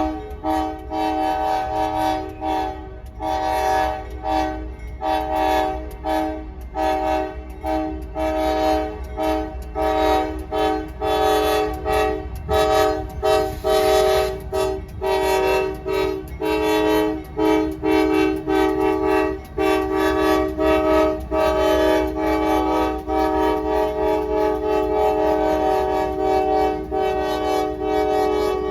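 Multi-chime train horn sounding a chord of several notes in many quick, rhythmic short blasts, turning to longer held blasts with brief breaks over the last third, above a steady low rumble.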